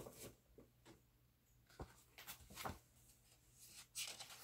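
Near silence with a few faint, brief rustles and soft taps of a paperback picture book being handled as it is held up and lowered.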